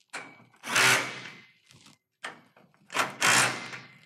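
Cordless power driver running in short bursts while tightening a bolt on a snow guard bracket. There are two longer bursts, about a second and about three seconds in, with briefer ones between them.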